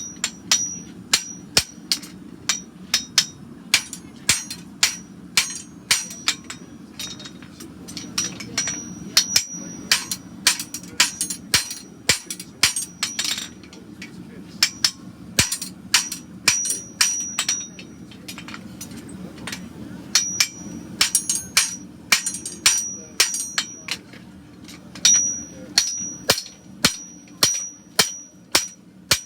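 Hand hammer striking red-hot horseshoe steel on an anvil, about one to two blows a second in runs with brief pauses. Each blow leaves a high ring from the anvil, as a Shire horse shoe is shaped from straight bar. A steady low hum from the gas forge runs underneath.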